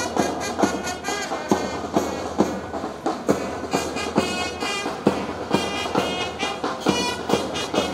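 Music with a steady beat and pitched instruments over it.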